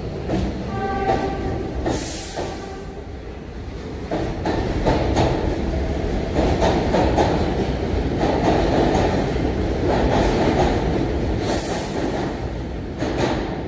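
New York City subway train pulling out of the station. Its wheels rumble and clatter on the rails, getting louder from about four seconds in as it picks up speed, with two short high hisses.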